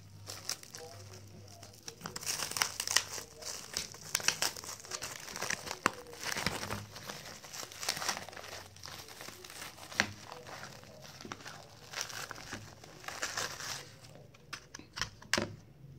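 Clear plastic wrap crinkling irregularly as it is peeled off a bowl and crumpled in the hands. The crinkling thins to a few crackles near the end.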